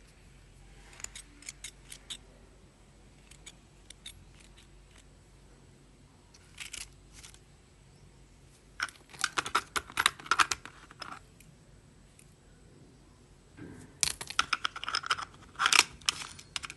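Geometry-set instruments (a compass and small plastic parts) clicking and rattling against the plastic tray and metal tin of a geometry box as they are handled. Scattered light clicks, then two bursts of rapid clatter, about nine seconds in and again near the end.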